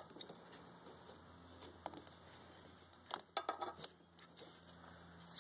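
A few faint clicks and light metal taps as a pry tool is set against the spring hose clamps of a mower's inline fuel filter, over a faint low steady hum.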